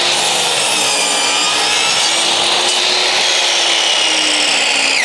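Electric compound miter saw running at speed with a loud, steady whine as its blade cuts through wood; the pitch begins to fall sharply right at the end as the motor winds down.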